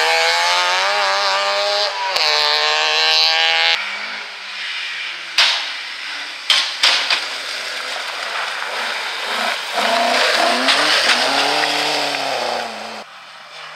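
A Trabant rally car's two-stroke engine revving hard as it pulls away on gravel, its pitch climbing, dipping at a gear change about two seconds in, then climbing again. After that, FSO Polonez rally cars slide through gravel corners with engines revving and tyres scrabbling on loose stones, with a few sharp cracks a couple of seconds after the change.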